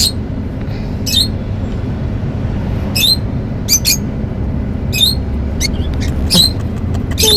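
Lovebirds giving short, sharp, high-pitched chirps, about eight spaced roughly a second apart, over a steady low hum.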